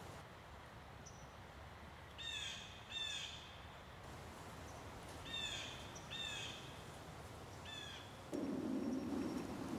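A crow cawing five times, harsh calls in two pairs and then a single, over quiet woodland background. Near the end a louder, steady low noise sets in.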